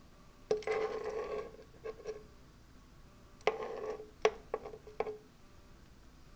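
A utensil scraping and tapping against a nonstick pan as popcorn kernels are stirred in oil, before they start popping. There is one longer scrape about half a second in, then a cluster of short taps and scrapes in the second half.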